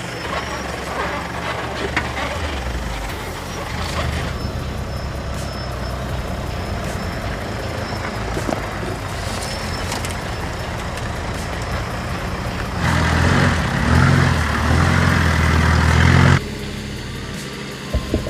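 4x4 vehicle's engine running steadily on an off-road trail. About thirteen seconds in it gets much louder for a few seconds, then drops back suddenly.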